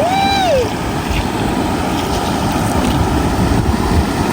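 Steady rush of river and waterfall water. A single short voice call rises and falls at the very start.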